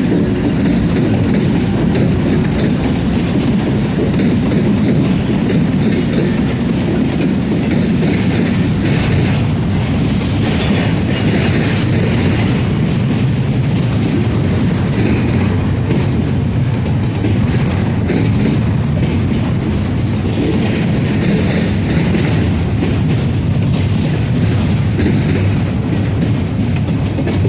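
Slow Norfolk Southern freight train rolling past: a steady low rumble of cars and wheels with clicking over the rail joints.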